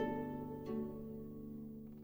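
Background music of slow plucked notes: one at the start and another about two-thirds of a second in, each ringing out and fading.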